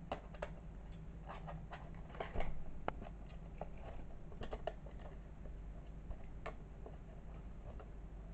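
Kitten's paws and claws scrabbling and tapping on a cardboard carton and a thin wooden toy house: scattered clicks and scratchy rustles, busiest and loudest about two to three seconds in.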